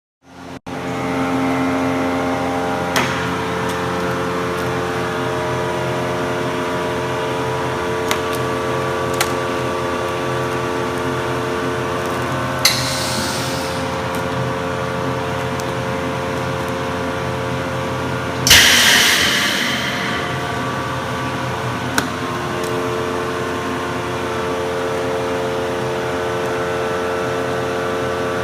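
Steady machine hum with several fixed pitched tones, like a motor or fan running, broken by a few sharp clicks and two short hissing bursts, one about 13 seconds in and a louder one about 19 seconds in.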